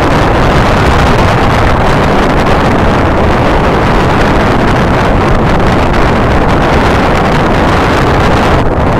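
Wind buffeting the phone's microphone outdoors: a loud, steady rush of noise with no distinct tone or event in it.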